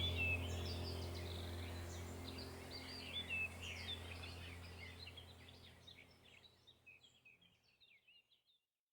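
Birds chirping and twittering over a steady low drone, a background nature-ambience track that fades out to silence about six seconds in.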